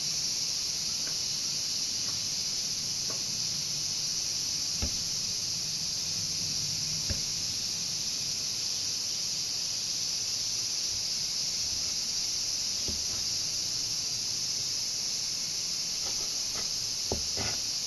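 Steady high-pitched insect chorus, unbroken throughout. A few faint knocks of a knife against a plastic cutting board come through, once about five seconds in, once about seven seconds in, and several near the end.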